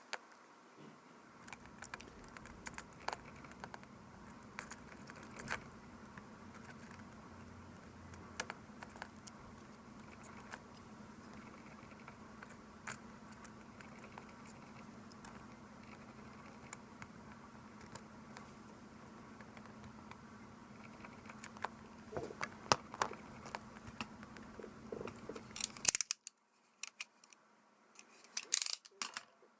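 Scattered small clicks and ticks of tools and tiny parts being handled on a compact digital camera under repair, with a few quick clusters of clicks, over a steady low hum that cuts off suddenly near the end.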